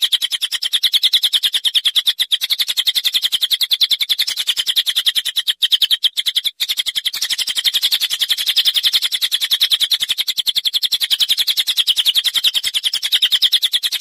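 A songbird singing a continuous, very fast, even trill of dry, high-pitched notes, breaking off briefly twice about midway. It is a recorded 'master' song of the kind played to train cage songbirds.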